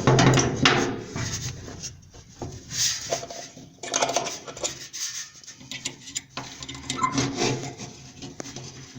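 Irregular scraping, rubbing and clicking of metal parts as the spring is hooked onto a clothes dryer's idler-pulley tensioner.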